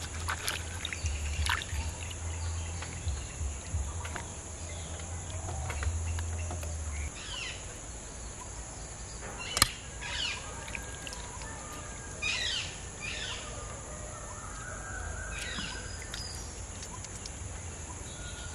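Outdoor ambience of birds chirping and calling on and off over a steady high insect buzz. A low hum stops about seven seconds in, and a single sharp click comes about halfway through.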